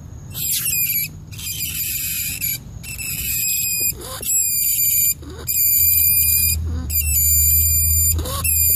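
Rat squeaking: a run of about seven high-pitched squeals in quick succession, each about a second long with brief pauses between, over a low steady hum.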